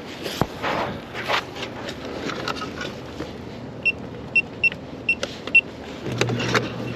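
Rustling and knocking handling noise with wind, a run of about five short high-pitched electronic beeps in the middle, and a low steady hum setting in near the end.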